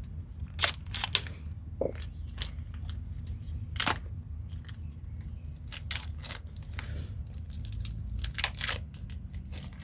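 Packaging of a new set of brake pads being torn and crinkled open: irregular rustles, crackles and sharp clicks.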